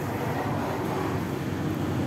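Steady rush of wind and road noise from riding a road bike at speed.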